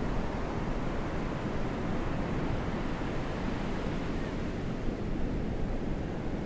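A steady low rushing noise with no distinct events in it.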